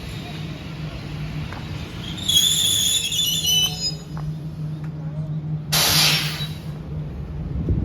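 Train at a station platform: a steady low hum, then a high metallic squeal of wheels and brakes for about a second and a half, followed by a short loud hiss of air from the brakes about six seconds in.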